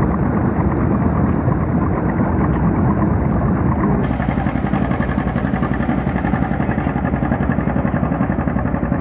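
John Deere two-cylinder tractor engine running with an even popping beat. About four seconds in, the sound changes abruptly to the engine working steadily while pulling a weight-transfer sled.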